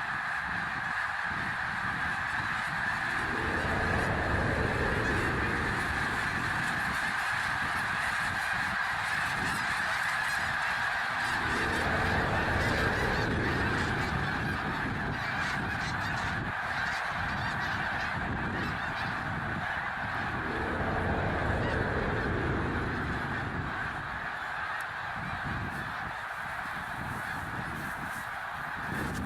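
A strange, horn-like droning sound of the 'sky sounds' kind: a steady, high, buzzing hum. Three times, slow, deep swells rise and fall beneath it.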